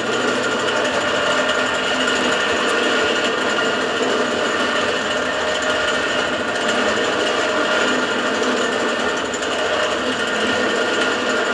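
Drill press running steadily, its bit grinding through the old rivets of a worn truck clutch disc to free the plate for relining.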